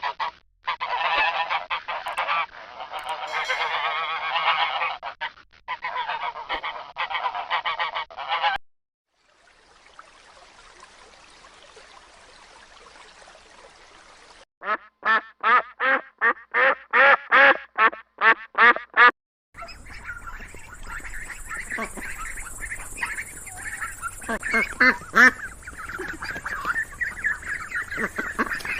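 White domestic geese honking: a dense, overlapping flock chorus for about eight seconds, then after a quiet pause a run of about a dozen evenly spaced honks. From about twenty seconds in, more calls come over a steady background hum and hiss.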